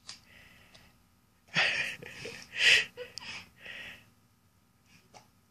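Husky chewing a bite of apple: a run of about six short, noisy chewing and breathing sounds starting about a second and a half in and ending about four seconds in.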